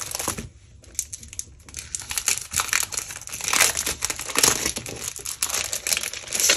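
Crinkling and rustling as a pack of specialty scrapbook paper is handled and its sheets are sorted through, irregular crackles that are busiest in the middle.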